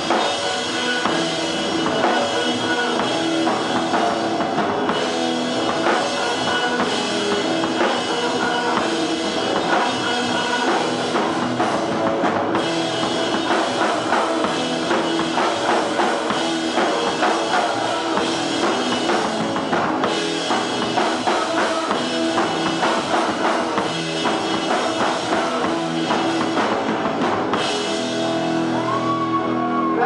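Live rock music from a guitar-and-drums duo: a full drum kit and an electric guitar played through an amplifier.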